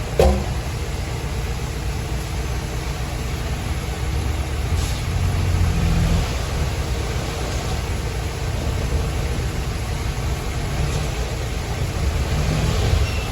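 Heavy diesel engine of earthmoving machinery running steadily, swelling louder about five seconds in and again near the end. There is a sharp click at the very start.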